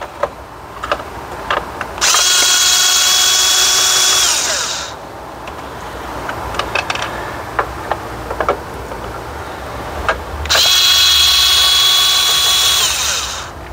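Cordless drill/driver with a flex-shaft extension driving out the 7 mm screws that hold an instrument cluster. It makes two runs of about three seconds each, the motor whine steady and then falling as the trigger is released, with light clicks and taps of tool and screws between them.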